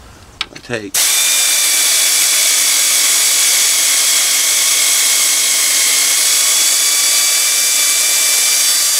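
Power ratchet running continuously on a socket extension, starting about a second in and holding a steady high whine over a hiss as it spins a bolt out of the power steering plate on a Ford 5.4 V8.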